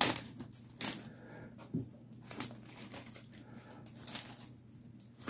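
Zip-top plastic bag crinkling in irregular rustles as hands open it and slide a folded damp paper towel inside.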